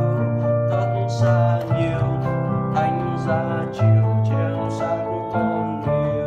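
Piano playing a hymn accompaniment: held low bass notes under chords that change about once a second.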